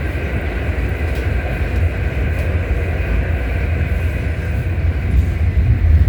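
R68 subway car running at speed: a heavy, steady rumble of wheels on track under a steady high whine from the traction motors, with a few faint clicks from the rails.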